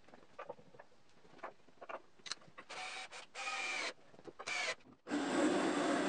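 Scattered light knocks, then a cordless drill whirring in three short bursts between about three and five seconds in. A bit past five seconds the 3/4-horsepower bandsaw's motor and blade abruptly come in, running steadily and loudly with a low hum.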